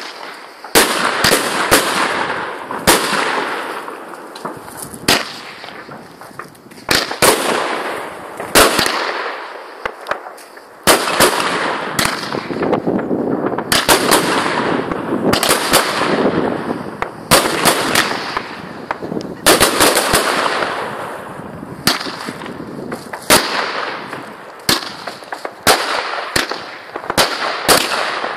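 Aerial fireworks going off: a long run of sharp bangs at irregular intervals, sometimes several in quick succession, with a continuous hiss and crackle between them.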